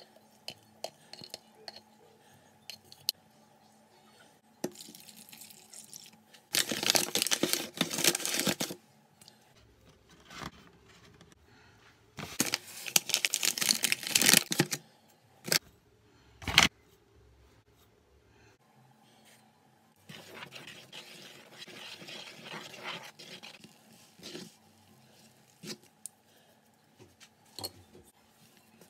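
Bread ingredients going into a large bowl: water poured in, then flour poured from a paper flour bag, the bag crinkling, each in a loud stretch of about two seconds. A sharp knock follows, then a softer stretch of pouring or rustling.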